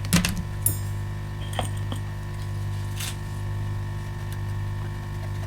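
A few light clicks and clinks of small metal tools being handled on a workbench, over a steady low hum.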